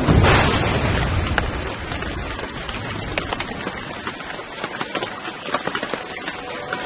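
A clap of thunder right at the start, fading over about a second and a half, then steady rain with individual drops ticking close by.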